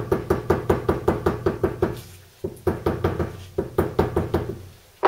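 Small hammer tapping rapidly on a new grease seal to drive it into the hub of a VW T25/T3 front brake disc, about six light ringing taps a second. The tapping pauses briefly about two seconds in, then starts again.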